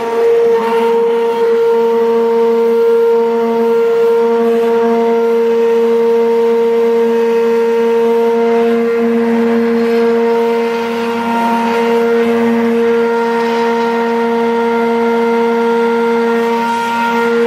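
George Home 600-watt stick blender running at its maximum speed on the normal (non-turbo) button, blade submerged in a pot of boiled onions and puréeing them. A loud, steady motor whine holds one pitch, over a faint churning hiss.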